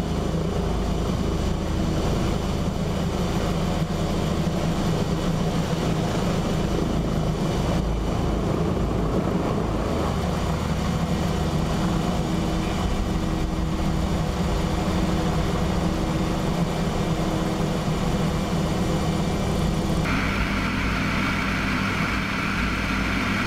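Military helicopter's engine and rotor noise heard from inside the open cabin in low flight, a steady drone; a higher whine joins in near the end.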